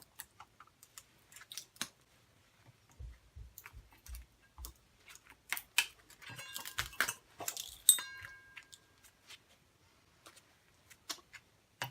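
Wire cutters snipping through the copper windings of a ceiling fan motor: scattered sharp snips and clicks, with a few dull knocks from handling the motor and a brief clinking, ringing of metal about two-thirds of the way through.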